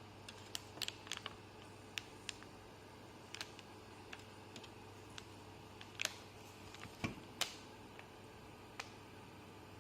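Scattered light clicks and taps of hands handling a desktop computer's case and parts during a graphics card installation, irregular and unhurried, over a faint steady hum.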